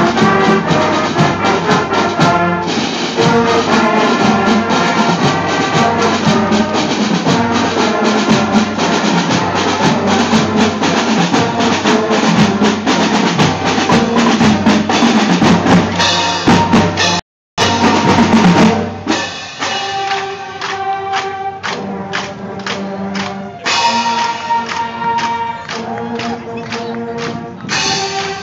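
School marching band playing a march: brass and drums, loud and close. The sound cuts out completely for a moment about two-thirds of the way through. After that, held wind notes stand out over regular drum taps.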